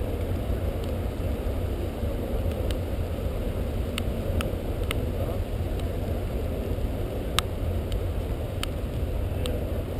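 Steady low outdoor rumble with no speech, with about ten sharp ticks scattered through it; the loudest comes about seven seconds in.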